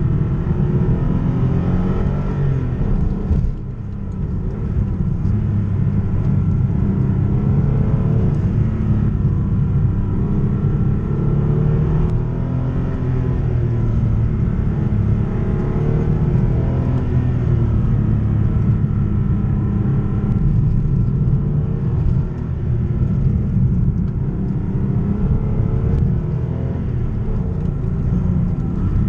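Porsche 964 Carrera 2's air-cooled 3.6-litre flat-six heard from inside the car while driving, its note rising and falling with the revs. The loudness dips briefly about three and a half seconds in and again near the two-thirds mark, then climbs again.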